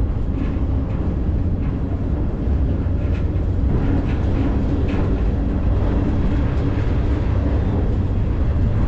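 Freight train starting to pull, heard from aboard: a steady low rumble of the moving cars with a few faint clanks.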